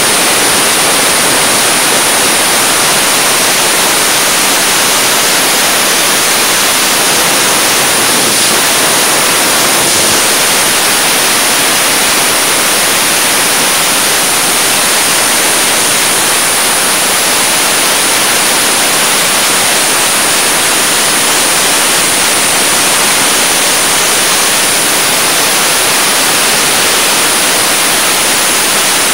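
Dustless (wet abrasive) blasting nozzle running continuously against an aluminum boat hull: a loud, steady hiss of compressed air, water and abrasive, strongest in the highs, as the hull surface is prepped for paint.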